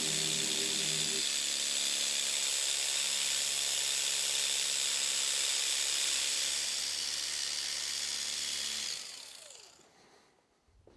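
Small electric polisher running steadily with a high whining hiss, then switched off about nine seconds in, its pitch falling as it spins down.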